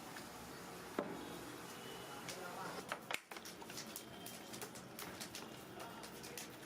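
Kitchen clatter of utensils against pots: a sharp knock about a second in, another pair of knocks near the middle, then scattered light clicks, over a murmur of voices.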